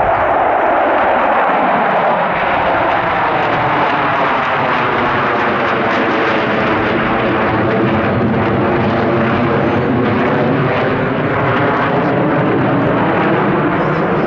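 Loud, steady jet roar of four Sukhoi Su-35S fighters, each with two Saturn AL-41F1S turbofans, passing overhead in close formation. The roar drops in pitch over the first two seconds, then takes on a shifting, swishing tone as the formation moves across the sky.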